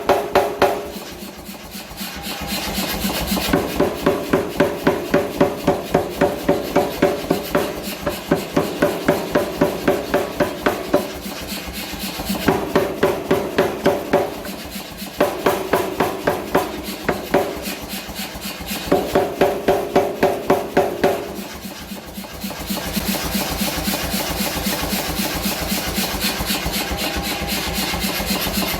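Mechanical power hammer pounding hot H13 steel in runs of several seconds at about five blows a second, each blow ringing, with short pauses between the runs. Near the end the sound turns steadier and hissier.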